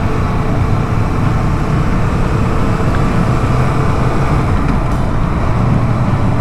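Yamaha MT-07 motorcycle's parallel-twin engine running at a steady cruise, with road and wind rush.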